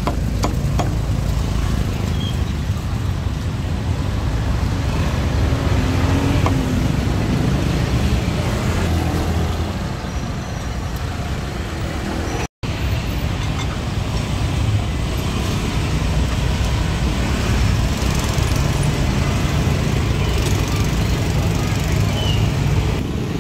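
Steady street traffic noise, a low rumble of passing motorbikes and cars, with the sound cutting out for an instant about halfway through.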